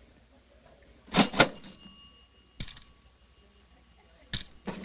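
Two sharp metallic clinks in quick succession about a second in, followed by a faint ringing tone that hangs for a couple of seconds. Two more single sharp clicks come later.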